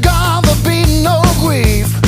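Background music: a loud track with a steady beat and a wavering melody line over sustained low notes.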